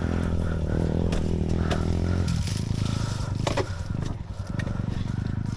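Enduro dirt bike's engine running steadily, its note dropping away about two seconds in, followed by rough tyre-on-dirt noise and a few sharp knocks and clatters.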